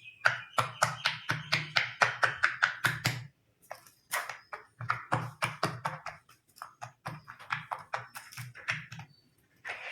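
Silicone pop-it fidget toy bubbles being pressed one after another: a quick run of small pops for about three seconds, then, after a short pause, slower, scattered pops.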